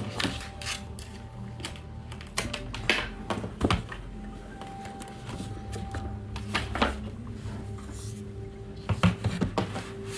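Soft background music with scattered knocks and clicks as a laptop and sheets of paper are handled on a desk, the knocks bunched about two to four seconds in and again near the end.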